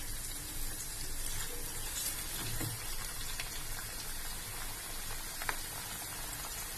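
Potato strips frying in hot oil: a steady sizzle with a few pops. This is the first, light fry of French fries.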